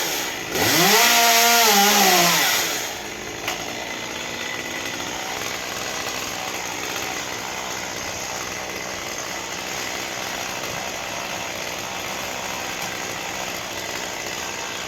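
Gas chainsaw at full throttle, its pitch dipping and climbing again as it works, then dropping to a steady idle about three seconds in.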